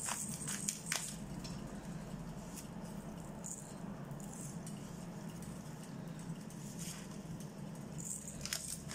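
Hand-held pepper mill grinding black peppercorns: a soft, gritty rattle, with a few sharp clicks in the first second, over a low steady hum.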